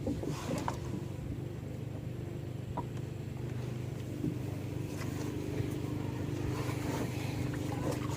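A motor engine running at a steady speed, a low even hum that grows slightly louder about halfway through.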